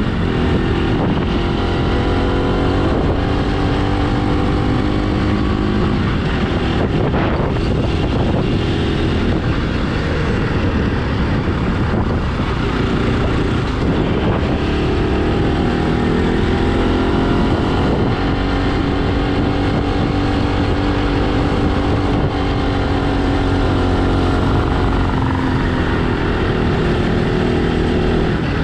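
Motorcycle engine running under way, its pitch rising and falling as the revs change, over a steady rushing noise.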